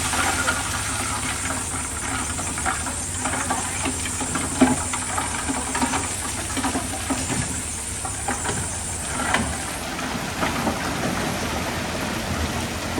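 Heavy diesel earthmoving machinery running steadily, with scattered knocks and clatters and a high steady hiss. The loudest knock comes about four and a half seconds in.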